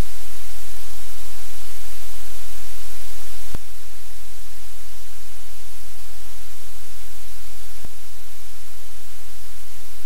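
Loud, steady hiss over a low electrical hum, broken by two sharp clicks, one about three and a half seconds in and one near eight seconds in.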